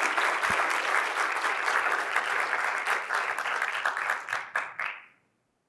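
Audience applauding, thick clapping that thins to a few separate claps and stops about five seconds in.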